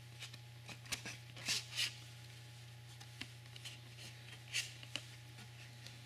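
A compact disc being slid out of its printed card sleeve by hand: a few short, light rustles and scrapes of card and disc, over a steady low hum.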